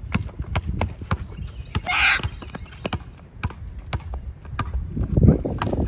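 Basketball being bounced on a court in irregular thuds, mixed with footsteps, during one-on-one play, with a short louder noise about two seconds in.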